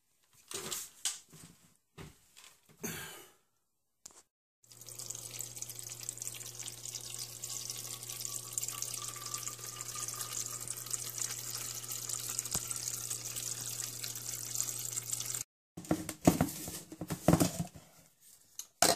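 Refrigerator door water dispenser running into a plastic shaker bottle for about ten seconds, a steady hiss of water over a low hum, with a faint tone rising slightly as the bottle fills; it cuts off sharply. Short knocks and clicks of the bottle being handled come before and after.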